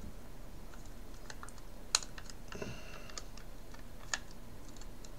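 Light plastic clicks and ticks from the snap-fit clips of a white plastic Raspberry Pi case being pried at by fingers to release the top. The sharpest click comes about two seconds in and another just after four seconds.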